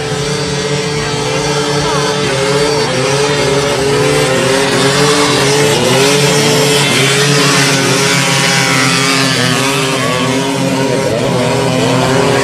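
Motocross motorcycles skimming across open water at full throttle, their engines revving with the pitch repeatedly rising and falling, over a steady rushing hiss.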